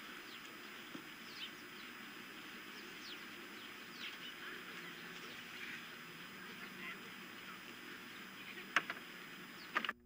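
Faint outdoor ambience with a steady hiss, scattered short high chirps of birds calling, and two sharp clicks near the end.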